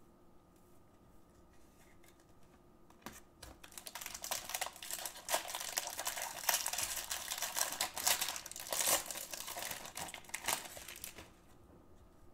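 Foil wrapper of a Bowman baseball card pack crinkling and crackling as it is torn open by hand and the cards are pulled out. The crinkling starts about four seconds in and stops about a second before the end.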